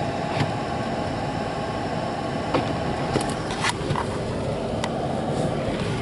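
Steady road and engine noise heard inside a car driving on a snow-covered road, with a few light clicks scattered through it.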